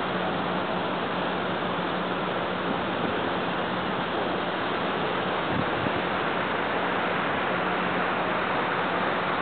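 Steady rushing noise of wind and open-air waterfront ambience, with a faint steady low hum underneath.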